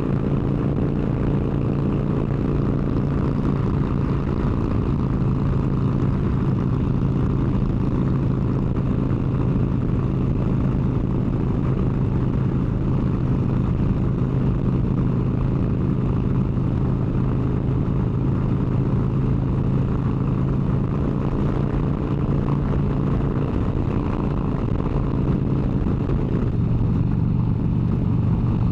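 Harley-Davidson V-twin motorcycle engine running steadily at highway cruising speed, its note shifting slightly near the end.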